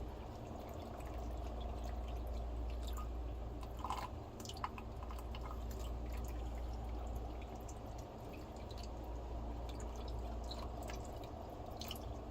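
Dirty water draining from the Amana Tandem 7300 washer's pump trap into a bucket, dripping and trickling steadily with scattered small drips over a steady low hum.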